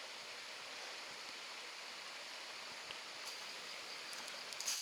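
Blackburn Creek's water running over rapids: a steady, even rush, with a few faint clicks near the end.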